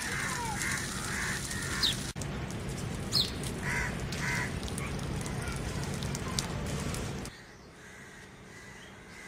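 Crows cawing several times, with a few short high chirps, over a steady low background rumble that drops away sharply about seven seconds in.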